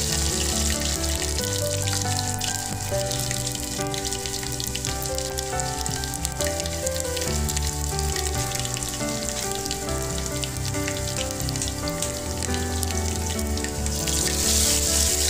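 Garlic cloves, cumin and mustard seeds sizzling and crackling in hot oil in an aluminium pot, with background music and a pulsing bass line playing throughout.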